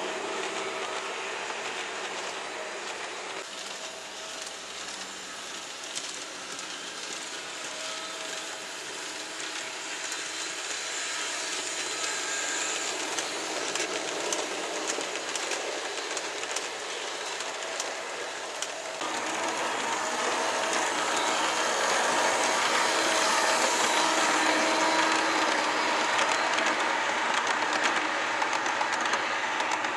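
Model train running on layout track, double-headed by two Re 4/4 II electric locomotive models: a steady motor hum with the light clicking of small wheels over the rails. It gets louder from about twenty seconds in.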